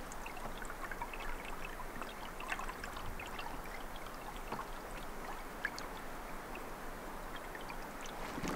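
Lake water gently lapping and trickling, with many small irregular drips and splashes.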